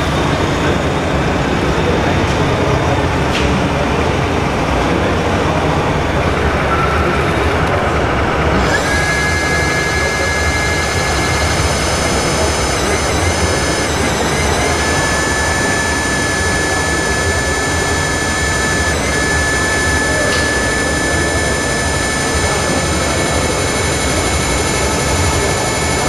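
A steady high whine starts about a third of the way in and holds, dipping briefly a few times: the electric hydraulic pump of a model Mercedes-Benz tipper truck raising its dump trailer body. Steady broad noise runs underneath.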